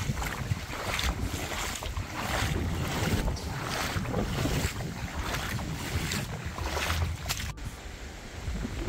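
Gusty storm wind buffeting the microphone: a rushing, rumbling noise that surges and eases every second or so. Near the end it breaks off abruptly and a lighter rush of wind follows.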